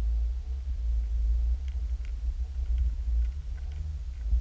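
Low steady underwater rumble picked up by a submerged action camera, with a few faint ticks scattered through it.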